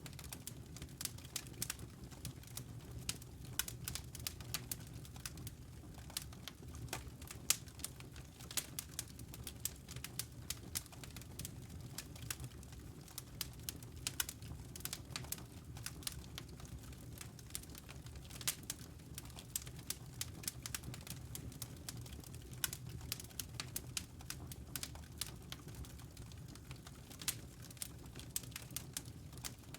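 Wood fire burning in a fireplace: logs crackling with frequent sharp, irregular pops and snaps over a steady low rumble from the flames.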